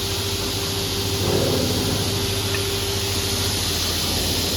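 TS-J39 automatic picture frame cutting machine running: a steady motor hum with hiss and a constant tone, swelling briefly just over a second in.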